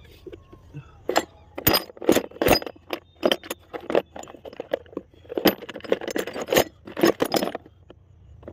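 Loose metal nuts, bolts and tools clinking and clattering in a tractor's metal toolbox as a hand rummages through them, in quick irregular bursts, searching for a replacement rotavator nut.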